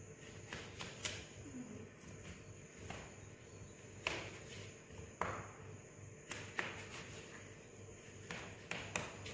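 Kitchen knife slicing a cucumber on a cutting board: faint, sharp knocks of the blade hitting the board at uneven intervals, roughly one a second, over a low steady hum.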